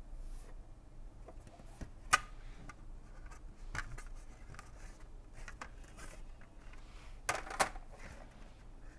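Handling noise from plastic texture plaques in a sample catalogue: faint rubbing and scattered clicks. The sharpest click comes about two seconds in, and there is a short cluster of louder handling sounds near the end.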